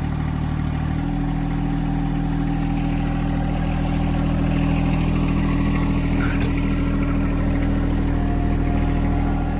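Tractor engine running steadily, growing a little louder around the middle.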